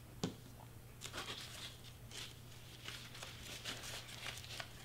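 Faint rustling and scratching of crepe paper strips being pressed and folded by hand onto glued foam board, with a soft click just after the start over a low steady hum.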